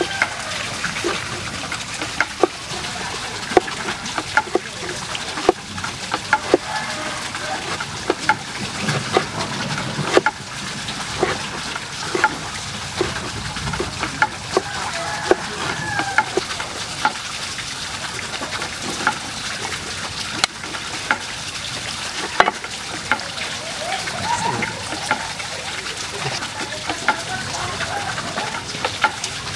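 A steel cleaver chopping vegetables on a cutting board: sharp knocks at uneven intervals throughout, over a steady background hiss.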